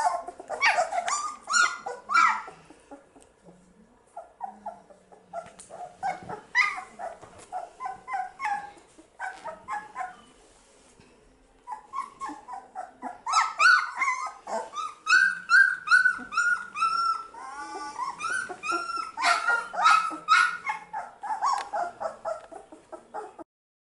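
Two-week-old White Swiss Shepherd puppies whimpering and yelping in a string of short high cries, some drawn out longer, with a brief pause about ten seconds in.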